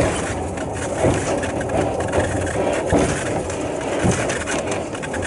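Sherpa-kun trolley train running uphill on the old Shin'etsu Line grade: a steady engine drone with wheel-on-rail noise, and a few knocks about one, three and four seconds in.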